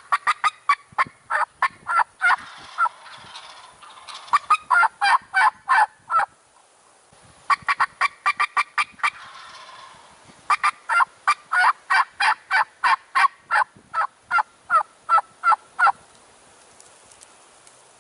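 Turkey yelping in long runs of short, evenly spaced yelps, about three or four a second. There are three runs, with brief pauses near 6 and 10 seconds, and it stops about two seconds before the end.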